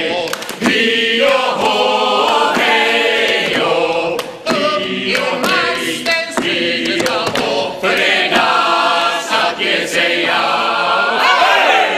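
A group of performers singing together, several voices at once, with sharp percussive hits scattered through the song.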